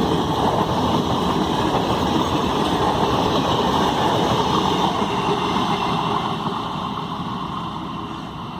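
Passenger express train running past at speed with a loud, dense rattle, fading gradually over the last couple of seconds as it moves away.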